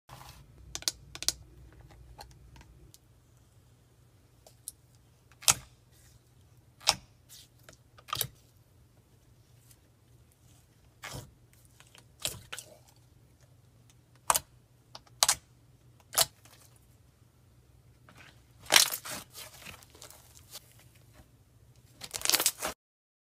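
Parcel packing: short tearing and crinkling noises, such as packing tape, paper and a cardboard box being handled, come one at a time every second or so, with a longer run of them near the end.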